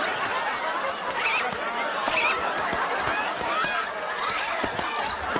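Sitcom studio audience laughing steadily and hard, with the cast's high-pitched shrieks and yelps over it as they panic.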